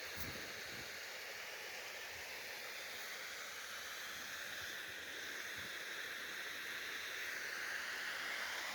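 Waterfall water rushing in a steady hiss, growing slightly louder near the end.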